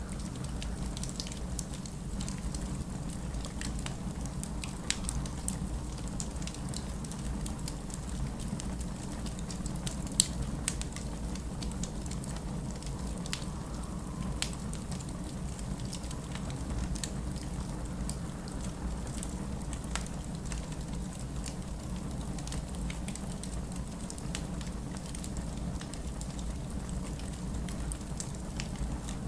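Wood fire crackling in a fireplace: scattered sharp pops and crackles, the loudest about 5 and 10 seconds in, over a steady low rumble.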